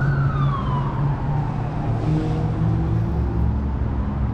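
An emergency vehicle siren wailing, its pitch falling and fading away over the first two seconds, over a low steady rumble.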